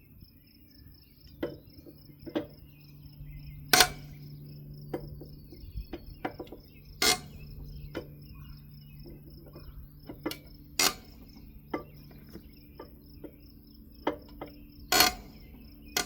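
Sharp metal clanks from hand tools on a trailer wheel, four loud ones a few seconds apart among many lighter taps, over crickets chirping steadily.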